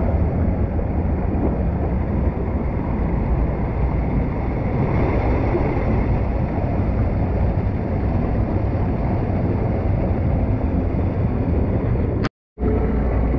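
Water from a spout pouring and splashing steadily into a hot-spring pool, a dense, even rush strongest in the low end. It breaks off for a moment near the end.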